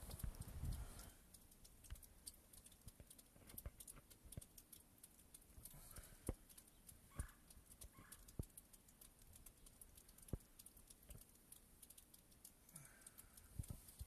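Near silence broken by faint, irregular ticks and clicks, with a low rumble in the first second.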